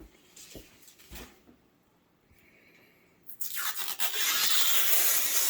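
Packaging material rubbed and scraped by hand, giving a loud, steady scratchy rustle that starts a little past halfway. Before that there are a few soft knocks.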